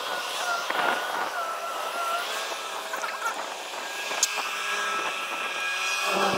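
Claas Jaguar 870 forage harvester and tractors working a silage field: a steady machinery drone with a high, slightly wavering whine, and one brief click about four seconds in.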